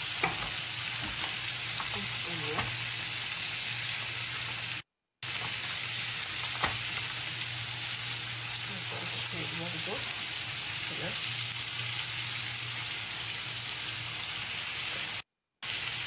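Spinach-stuffed chicken breasts sizzling in olive oil in a grill pan, a steady frying hiss. It cuts to silence for a moment twice, about five seconds in and near the end.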